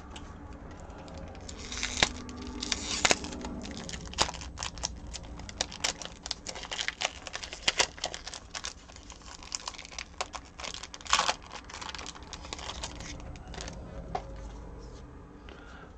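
A trading card pack's wrapper being torn open and crinkled by hand: a dense run of sharp crackles and rustles starting about two seconds in and easing off near the end.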